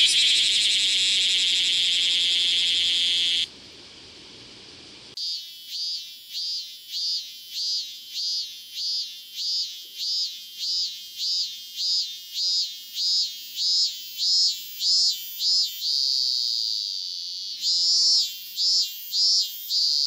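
A bear cicada's dense, steady buzz stops about three seconds in. After a short pause a robust cicada (minmin-zemi) sings its song: repeated 'meen' notes about two a second that grow louder, a drawn-out steady note near the end, then more notes.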